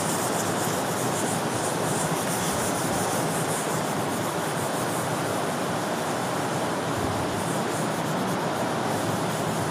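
A hand-held duster rubbing across a whiteboard, wiping off marker writing, heard as a steady scrubbing hiss.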